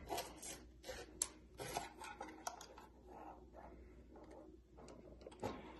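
Faint, irregular clicks and light scraping of small hard parts being handled, as a thermocouple's yellow flat-pin connector is worked by hand.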